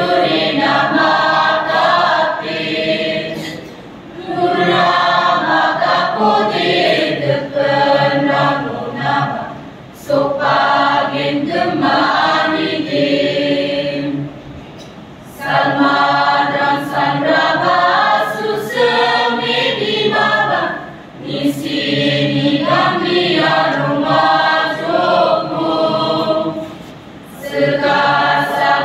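Youth choir singing in Garo, phrase after phrase with short breaks between lines every few seconds.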